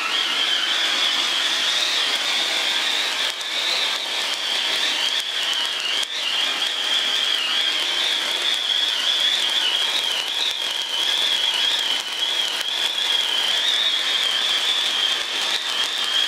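Taiwan-made cold pyro (cold spark fountain) burning: a steady hiss with a high, wavering whistle and scattered crackles as it throws a column of sparks.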